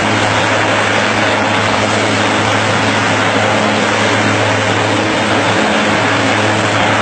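Twin-engine turboprop plane's engines and propellers running as it taxis: a loud, steady hiss over a low hum.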